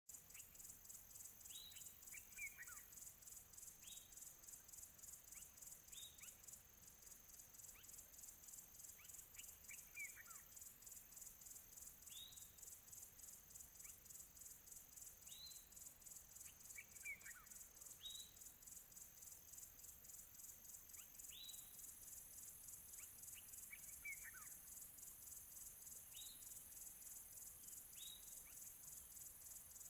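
Faint, steady high-pitched trilling of insects, with a bird giving short calls that slide down in pitch about every two seconds.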